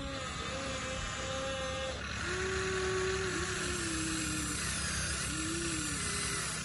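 Small electric motors of a toy RC excavator and dump truck whining in short runs that start and stop, the pitch dropping about two seconds in, over a steady hiss.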